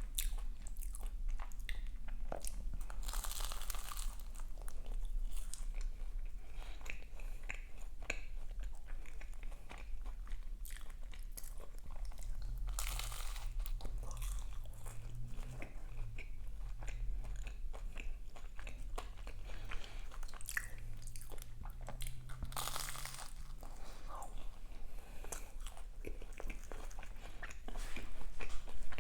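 Close-up chewing of crisp pastry, with frequent small crunches and a few louder bites about three seconds in, around thirteen seconds and around twenty-two seconds.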